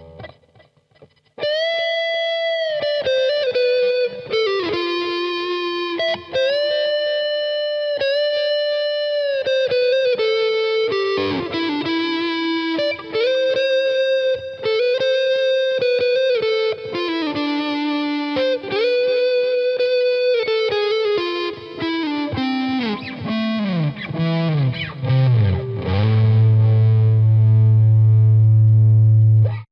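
Electric guitar played through a Fender Mustang III V2 modelling amp with an overdriven, effects-laden tone: a lead line of long sustained notes joined by slides. Near the end it slides down into a low held note that cuts off abruptly.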